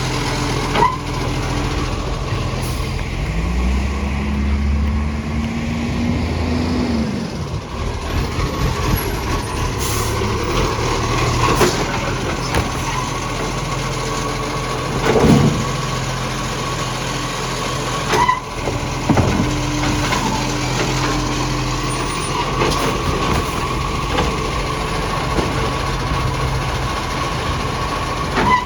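Garbage truck's diesel engine running, the engine of a truck with a big exhaust leak. It revs up and back down once about three seconds in, and several short sharp knocks and hisses come through near the middle.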